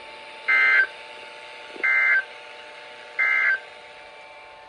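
Emergency Alert System end-of-message data tones: three short, identical bursts of buzzy warbling digital data, about a second and a half apart, marking the end of the alert broadcast.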